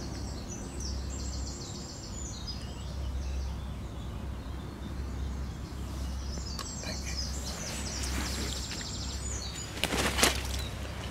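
A songbird singing in two spells of quick, repeated high notes over a steady low rumble. About ten seconds in there is a short, loud rustle of handling.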